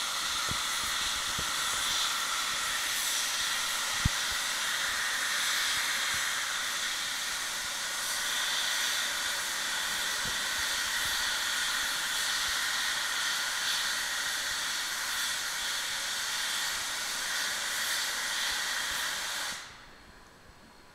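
Geared Shay steam locomotives hissing steam steadily, with one sharp click about four seconds in; the hiss cuts off abruptly near the end.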